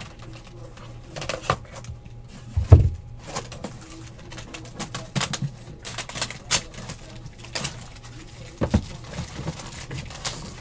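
Items being handled and set down on a tabletop: scattered clicks and knocks, with one heavier thump about three seconds in, over a steady low hum.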